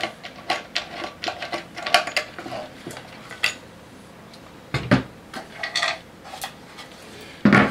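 Pine boards and wooden blocks being handled and set down on a wooden table: a series of knocks and clatters, with louder thumps about five seconds in and near the end.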